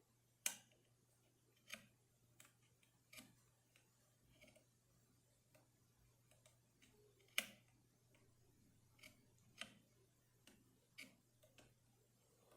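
Faint, irregular metal clicks of a 2-in-1 lever pick tapping the levers up inside an Assa Abloy Union three-lever lock, with about a dozen ticks spread out and the sharpest about half a second in and about seven seconds in.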